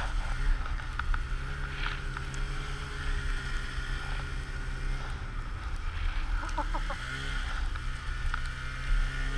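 Polaris Pro RMK Axys snowmobile's two-stroke engine pulling hard up a steep climb in deep powder, with a high hiss of snow spray. Its note holds mostly steady and wavers briefly about five and seven seconds in as the throttle shifts.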